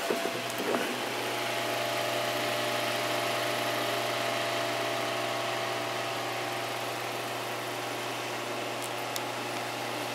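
Vintage Superior Electric Company desk fan running steadily, its electric motor giving a constant low hum under the whir of the spinning blades.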